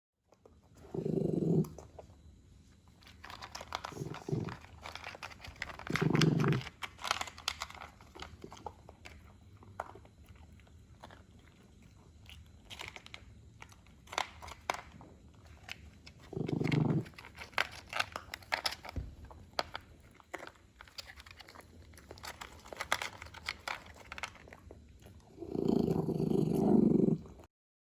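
Shih Poo dog chewing and crunching its food, with short low growls about five times, the longest near the end. The owner takes the growling for the dog enjoying its meal, not aggression.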